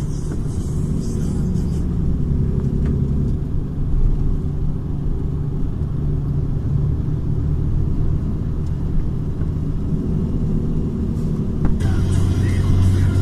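Car driving along a road, heard from inside the cabin: a steady low engine and tyre rumble.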